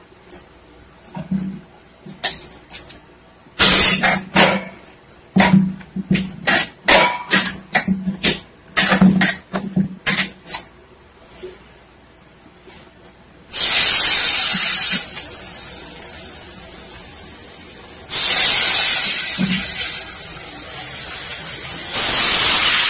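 Short squelches and knocks of chana dal batter being mixed by hand in a steel bowl; then, about fourteen seconds in, three loud bursts of sizzling as lumps of pakora batter drop into hot oil in a kadhai, with a quieter steady fizz of frying between them.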